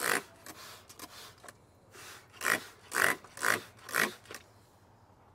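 Hand trigger spray bottle squirting a cleaning mix onto a vinyl golf cart seat: a hiss of spray at the start, then four quick squirts about two a second.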